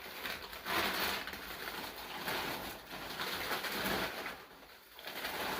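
Paper and fabric rustling in several swells as a t-shirt is handled and unfolded out of a gift clothing box.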